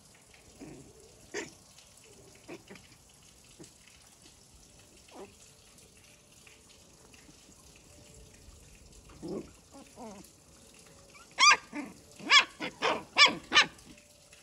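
A dog barking: a quick run of about six loud, high-pitched barks near the end, after a stretch of faint scattered knocks and rustles.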